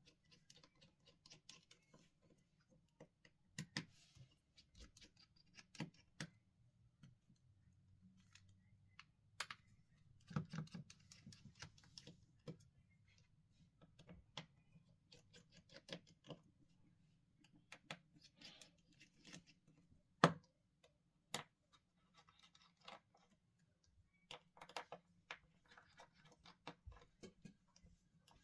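Faint clicks and light scratching of a small screwdriver working out the tiny screws inside a Samsung S22 Ultra smartphone, with an occasional sharper tap.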